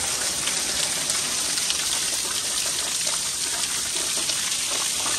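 Water gushing steadily from a pipe outlet in a pool wall, partly blocked by a hand so that it sprays out and splashes onto the tiled pool floor.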